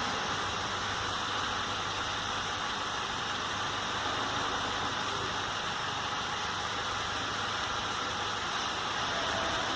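A steady mechanical hum with an even hiss over it, unchanging in level.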